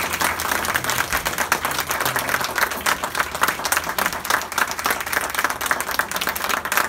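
Audience applauding, many dense, quick hand claps just after a live band's song has ended.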